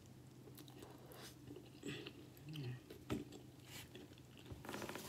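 A person chewing a mouthful of breaded fried tilapia, with faint wet mouth sounds and scattered clicks. One sharp click comes about three seconds in.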